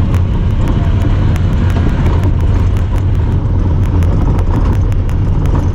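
Honda Talon 1000R side-by-side's parallel-twin engine running steadily under way, a constant low drone. Over it runs a fast, even ticking of small clicks, which the uploader says comes from the camera.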